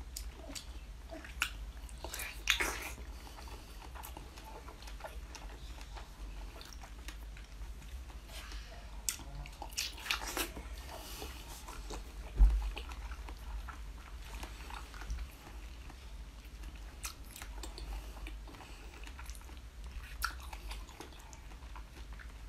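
Close-miked biting and chewing of strawberry jelly set with whole strawberries: scattered wet bites and smacks at an uneven pace, with one louder thump about twelve seconds in.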